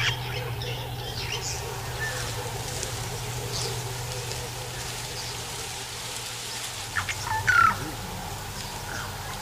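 Wild birds calling, with scattered short chirps and a louder call about seven to eight seconds in, over a steady low hum.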